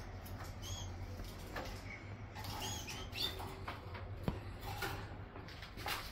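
Caged canaries giving short, high squeaky chirps at irregular intervals, with a few sharp clicks, the loudest about four seconds in, over a steady low hum.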